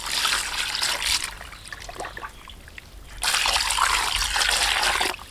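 Running water pouring into a metal pot of cut raw beef and splashing over the pieces as they are washed by hand. The pour is loud for about the first second and again from about three seconds in, quieter in between.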